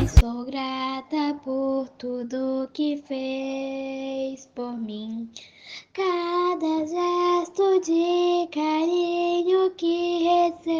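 A child singing a slow, gentle song alone, with no accompaniment, in held phrases with short breaths between them. The full band music before it cuts off abruptly just as the singing begins.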